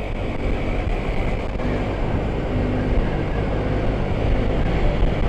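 Steady wind rush and motorcycle riding noise heard from inside a helmet with its visor open, at about 40–50 km/h in traffic. Faint engine hum lies under the wind.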